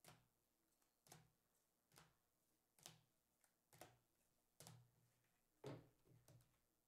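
Faint clicks and light knocks of hard plastic card holders being handled, swapped and stacked, about once a second.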